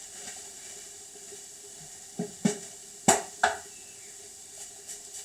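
Chicken, potatoes and mushrooms sizzling faintly in a frying pan, broken by four sharp clinks and knocks of kitchenware between about two and three and a half seconds in.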